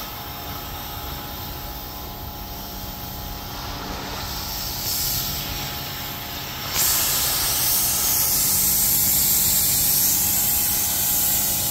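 Pressure washer running, its water jet a steady hiss with a low hum underneath. The spray gets louder and brighter about seven seconds in.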